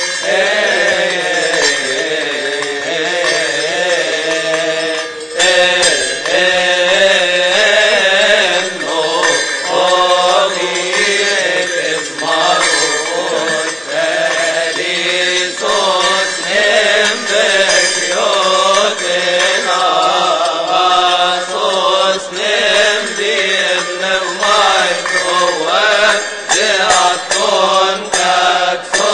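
A choir of Coptic deacons chanting a liturgical hymn in unison, a long melismatic melody carried by men's voices.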